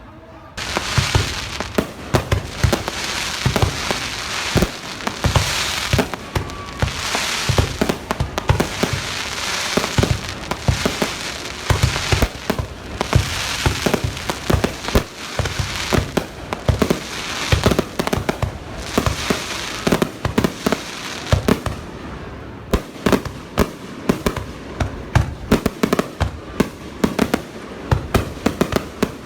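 Fireworks display: a dense, continuous barrage of sharp bangs over crackling, starting suddenly about half a second in.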